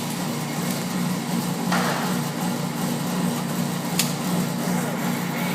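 Steady droning hum with a rushing noise over it. A brief rustle comes about two seconds in, and a single sharp click about four seconds in.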